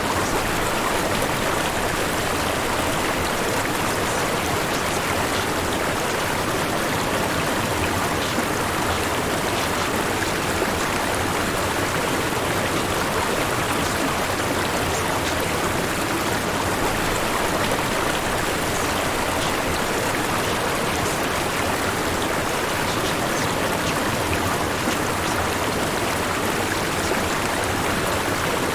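Steady white noise of a subliminal audio track: an even rushing hiss, like running water, that does not change.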